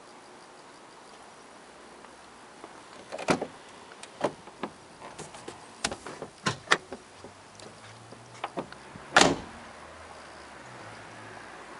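Citroen Berlingo's door and bonnet release being worked: a series of sharp clicks and knocks as the door latch opens and the bonnet release lever under the dash is pulled, ending just after 9 seconds in with one loud knock, the door shutting.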